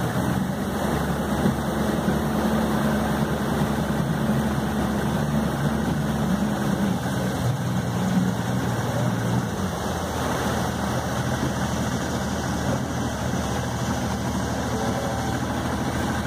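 A boat's outboard motor running steadily at low, idle-like speed, a continuous low drone; it eases off slightly about ten seconds in.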